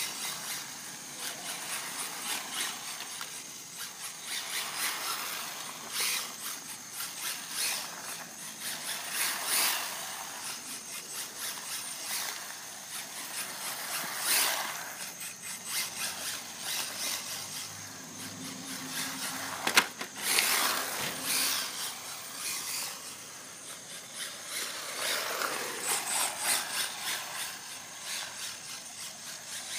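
Redcat Lightning EPX Pro electric RC car running, its tyres scrubbing and scrabbling over the ground in repeated surges as it spins, with a sharp knock about two-thirds of the way through.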